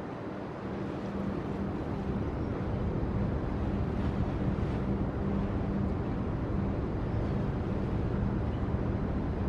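Steady low drone of a passing bulk carrier's engines, a constant hum under a rumbling wash of wind on the microphone, growing a little louder about a second in and then holding.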